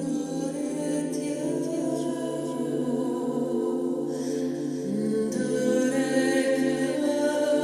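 Crystal singing bowls ringing in steady, overlapping held tones under a voice singing wordless, chant-like vocal sounds.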